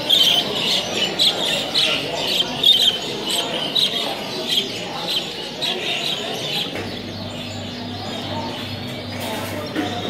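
Many caged budgerigars chirping, a dense run of short high chirps that thins out over the second half. A steady low hum comes in about seven seconds in.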